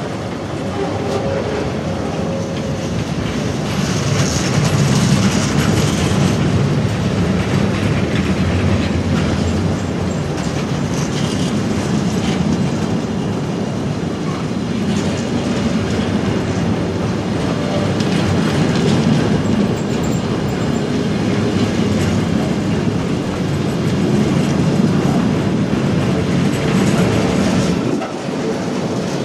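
Freight train container wagons rolling past at close range: a loud, steady rumble of steel wheels on rail with clattering over the rail joints.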